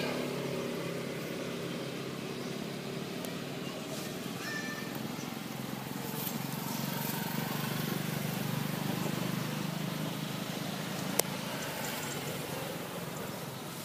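Steady low rumble of outdoor background noise, with a faint short squeak about four and a half seconds in and a single sharp click about eleven seconds in.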